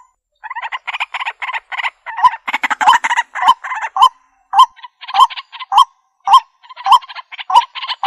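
White-breasted waterhen calling: fast runs of harsh, rapidly repeated croaking notes, then from about halfway a steady series of single hooked notes about twice a second.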